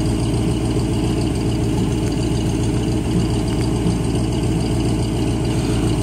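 1984 Lazy Daze motorhome's engine idling steadily.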